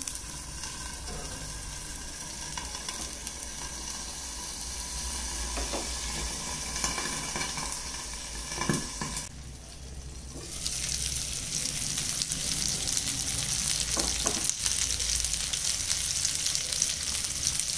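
Rava-coated kallur fish steaks shallow-frying in hot oil in a non-stick pan, sizzling steadily. The sizzle dips briefly about nine seconds in, then comes back louder.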